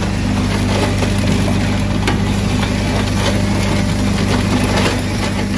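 Rock salt grinder machine running with a steady low hum, while lumps of rock salt clatter and click against the steel hopper as they are pushed in by hand.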